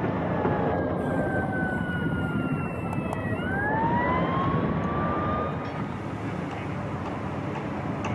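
Steady outdoor traffic rumble, with a distant siren wailing that slides slowly down in pitch and then rises again around the middle.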